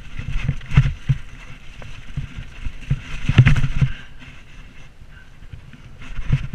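Mountain bike rattling and thudding over rough, muddy ground, with wind buffeting the camera microphone. The rumble eases after about four seconds as the bike rolls onto smooth grass.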